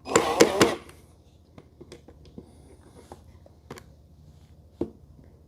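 A short clatter of quick knocks and rattles as the assembled corner shelf and tools are handled, followed by a few faint scattered taps and clicks, one sharper click near the end.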